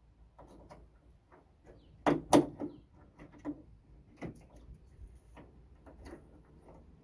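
Scattered clicks and knocks of hand work on the underside of a raised car bonnet, with two sharp knocks close together about two seconds in and another just after four seconds.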